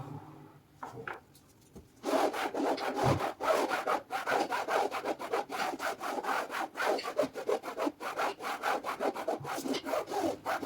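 Fast back-and-forth scrubbing of fabric couch upholstery with a towel wrapped over a lid, working carpet shampoo foam into it. The rubbing starts about two seconds in and keeps a quick, steady rhythm.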